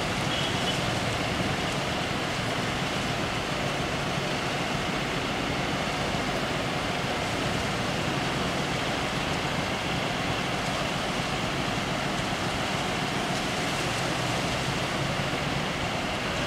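Steady engine rumble of motor vehicles idling, an even drone with a low hum and no change in level.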